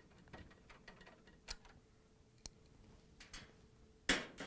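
Faint scattered clicks and ticks of a quarter-inch nut driver backing out a dryer timer's mounting screws, with a few sharper single clicks, then a louder knock near the end as the timer is handled.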